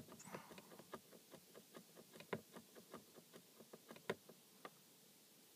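BMW E60 instrument cluster's odometer reset button pressed over and over, a quick run of soft clicks at about four a second that stops shortly before the end. Each press steps the cluster's hidden test menu up by one number.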